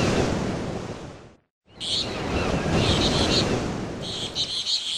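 Outdoor ambience: a steady rushing noise with birds chirping in quick repeated bursts. It fades out about a second and a half in, drops to silence for a moment, then comes back with more chirping.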